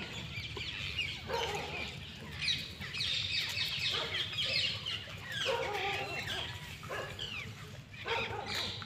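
Birds chirping and clucking, many short quick calls in several bursts with brief lulls between them.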